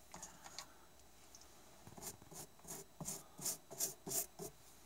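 Bristle paintbrush stroking blended moss slurry onto a rough piece of bark: a run of short scratchy brush strokes, about three a second, starting about two seconds in.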